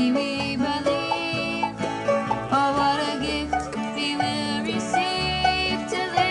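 Acoustic band playing a bluegrass-style tune, with quick runs of plucked string notes over steady bass notes.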